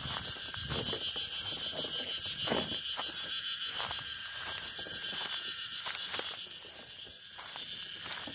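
Insects trilling in a steady, high, rapidly pulsing chorus, with irregular close rustles and knocks underneath.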